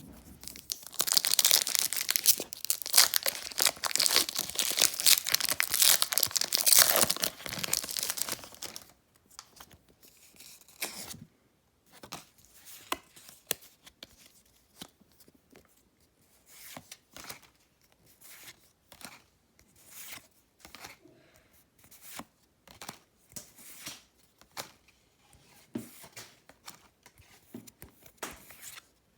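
Foil wrapper of a Pokémon card booster pack crinkling and tearing open for the first eight seconds or so. After that the cards are slid across one another one at a time, a soft swish about once a second.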